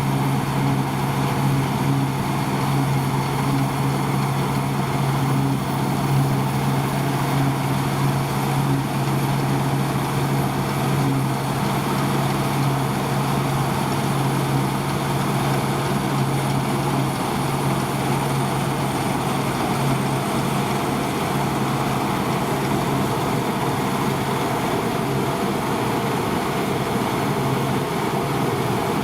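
Deutz-Fahr 5690 HTS combine harvester running steadily, a constant engine drone with machinery hum; the low engine note weakens a little about halfway through.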